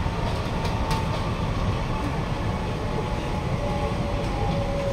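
Cabin running noise of a Kawasaki-CRRC Sifang C151B metro train under way: a steady low rumble of wheels on rail, with faint whining tones that slide lower in pitch and a few light clicks about a second in.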